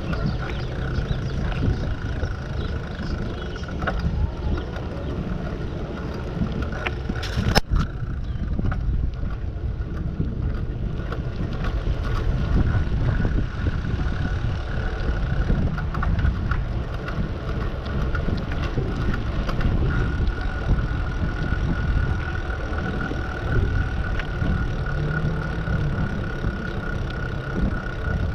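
Wind buffeting the microphone during a bicycle ride, a steady low rumble with a thin high hum running under it. A single sharp knock about seven and a half seconds in.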